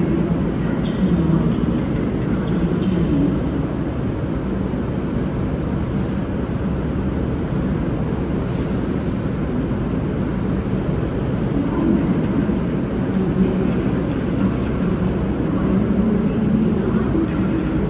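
Diesel train engines running with a steady low rumble.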